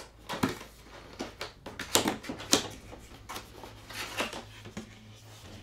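A large cardboard box being opened and its contents handled: a dozen or so irregular knocks, taps and scrapes of cardboard and packing, over a steady low hum.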